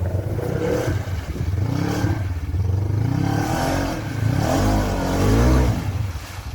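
Polaris RZR 900 side-by-side engine revving up and down repeatedly under load while driving through mud, loudest about five seconds in, then easing off near the end.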